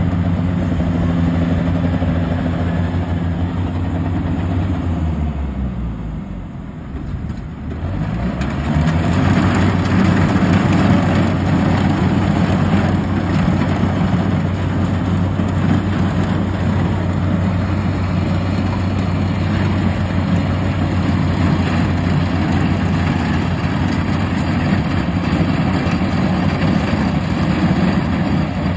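Yanmar combine harvester's diesel engine running steadily as it harvests rice. About five seconds in, its pitch and loudness sink, then climb back up about two seconds later and hold steady.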